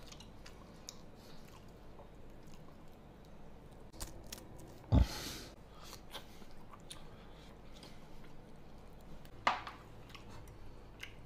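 A person chewing and gnawing a braised pig's trotter, with small wet clicks and crunches throughout. A loud thump comes about five seconds in and a sharp knock about nine and a half seconds in.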